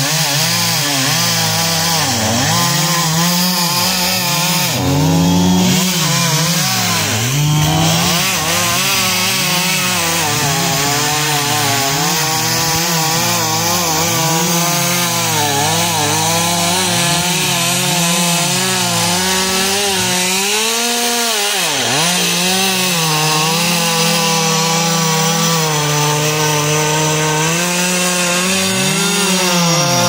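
Two-stroke top-handle chainsaw cutting through a felled pine trunk, its engine running continuously with the pitch repeatedly dipping and rising as the chain loads up in the wood and frees again.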